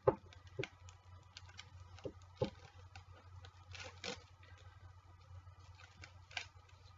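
Fingernails picking at and handling paper flyers: scattered light clicks and taps with a few short rustles. The loudest is a sharp click right at the start.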